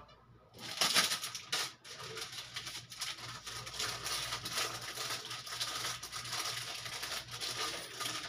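Thin gold bangles clinking and rattling against each other as they are turned on a finger: two sharper clicks about a second in, then a fast, continuous metallic jingle.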